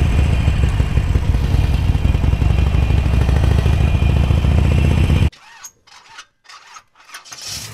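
Motorcycle engine running steadily under the rider at low speed. It cuts off suddenly about five seconds in, leaving a few faint swishes.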